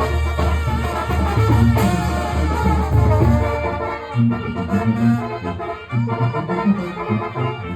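Sinaloan brass banda playing live, with brass melody over a tuba bass line. About four seconds in, the held low bass gives way to short, bouncing bass notes.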